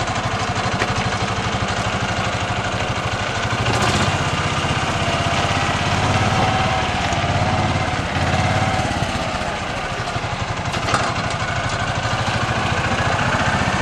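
Small engine of a John Deere Gator utility vehicle running as it drives off slowly, a steady fast putter that grows louder about four seconds in.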